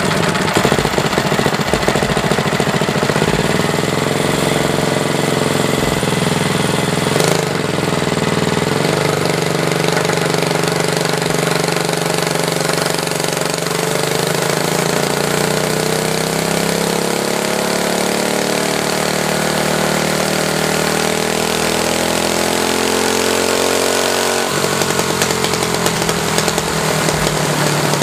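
Heavily modified Honda GX200 single-cylinder four-stroke go-kart engine running loudly, its speed wavering at first, then climbing slowly past the middle and dropping suddenly near the end.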